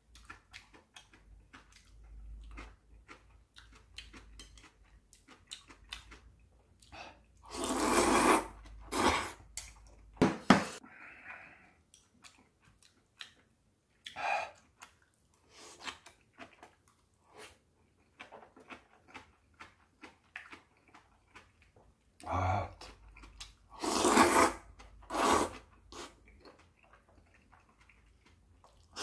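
Person eating knife-cut noodles (kalguksu) with chewing and small clicks of metal chopsticks throughout, and loud noodle slurps in two clusters, about eight to eleven seconds in and again about twenty-two to twenty-five seconds in.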